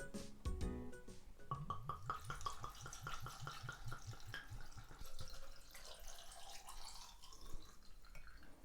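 Liquor poured from a bottle into a jar of cut quince and rock sugar. It glugs in a quick, even rhythm for a few seconds, then runs on more loosely.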